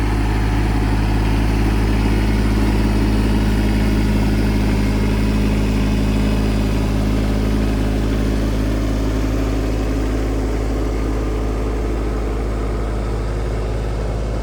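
Tractor engine running steadily at a constant speed, a loud, even drone, as it pulls the plow digging the potato rows.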